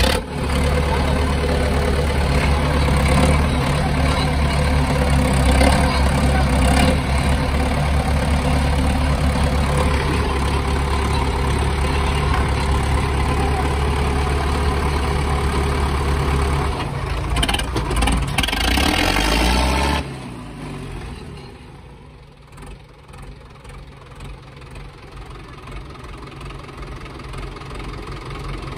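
Stripped-down tractor diesel engine with a tall exhaust stack running loud and steady, then dropping suddenly to a much quieter idle about twenty seconds in.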